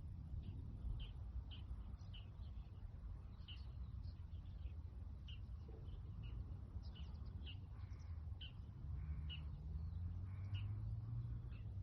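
Small birds chirping in short, repeated calls over a low rumble, with a steady low hum coming up near the end.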